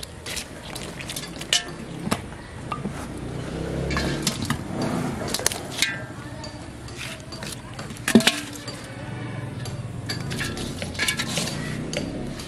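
Live snakehead fish thrashing and slapping on wet ground and against an aluminium pot as they are handled into it, with sharp clinks and knocks on the metal and splashes of water. The loudest knock comes about eight seconds in.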